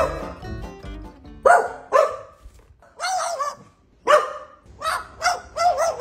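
Dog barking: about eight short barks at uneven intervals, a couple of them in quick succession near the end.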